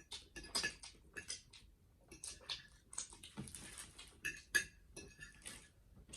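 Close-miked eating: irregular crunchy chewing and bites with light clicks and taps, the loudest about four and a half seconds in.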